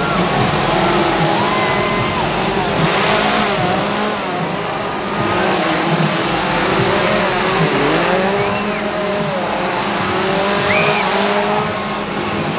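Several gas chainsaws running together, idling and revving, over shrieks and yells from a crowd.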